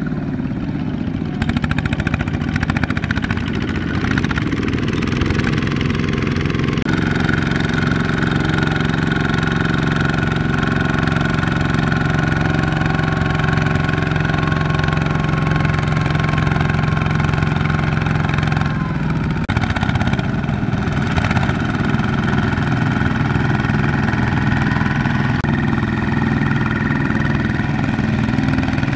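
Single-cylinder diesel engines of Kubota ZT155 two-wheel walking tractors running steadily under load as they pull trailers of rice sacks through mud. The sound shifts abruptly a few times as the view changes between tractors.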